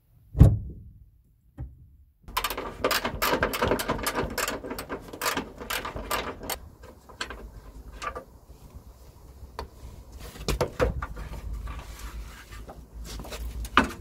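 A single heavy clunk, then a long stretch of close handling noise: rustling, scraping and quick clicks and knocks as a hand works on the underside of a van.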